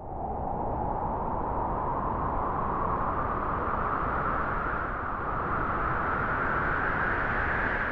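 Wind blowing through grass: a steady rushing noise that swells slightly just after the start and then holds.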